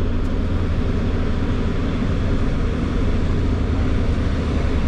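Steady low rumble of road traffic on a busy highway, with no single event standing out.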